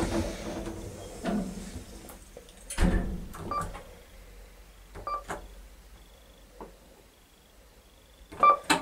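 Kone elevator car-panel push buttons being pressed several times, each press a sharp click, some followed by a short beep.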